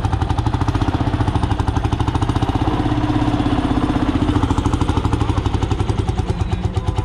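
Antique Lanz 24 tractor's engine running under way, with a steady, rapid, even exhaust beat through its original silencer.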